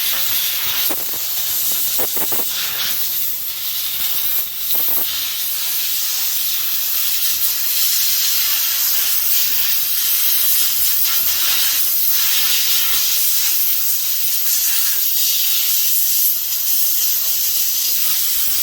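McCulloch canister steam cleaner jetting steam from its nozzle: a loud, steady hiss, with a few light knocks in the first five seconds.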